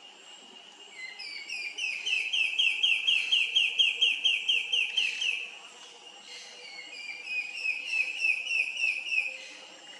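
Sooty antbirds, a male and female pair, singing: two songs of fast, evenly repeated high whistled notes, about five a second. The first song lasts about four seconds; the second, shorter one starts a second and a half after it ends.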